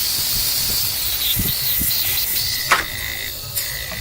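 Homemade air compressor running, with air hissing hard out of its outlet alongside a steady hum and a thin whine. A sharp click comes a little under three seconds in, after which the hiss is somewhat quieter.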